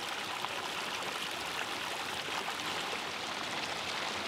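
Small mountain stream trickling and splashing over stones, a steady rushing hiss.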